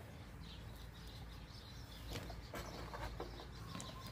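Mud-caked snail shells clicking lightly against each other, a few sharp clicks, as they are handled into a mesh bag. Faint bird chirps in the background.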